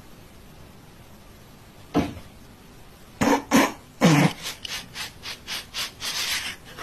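A person's voice in short bursts, cough-like at first and then a quick run of about three a second, after a single sharp sound about two seconds in.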